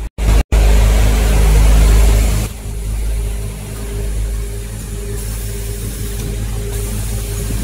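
Steady mechanical running noise of an automatic breathing-filter installing machine line: motors, robot and conveyor giving a low drone, with a tone that comes and goes in the second half. The sound drops out twice very briefly near the start, then is louder for about two seconds before settling.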